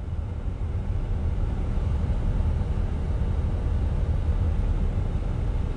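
Steady low rumble of a moving car's engine and road noise, picked up by a phone's microphone inside the cabin.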